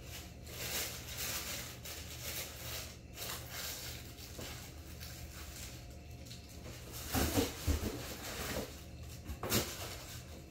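Tissue paper rustling and crinkling as it is handled and pulled away from a pair of shoes, with a few louder knocks about seven seconds in and once more near the end.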